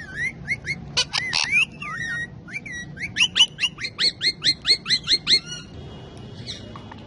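Ringneck parakeets calling in shrill rising chirps. After a few scattered calls comes a fast run of about a dozen, roughly four a second, which stops about two-thirds of the way through.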